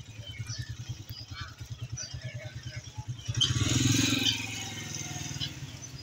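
A motorcycle engine running with a fast, low putter, swelling louder about three and a half seconds in as it passes and then easing off. Faint, short bird chirps come from the cages.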